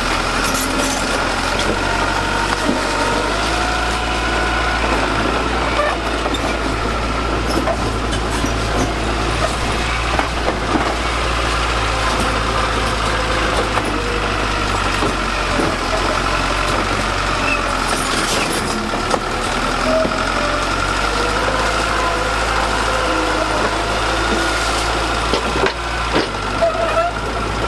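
Heavy construction machine's diesel engine running steadily, with scattered short knocks and clanks.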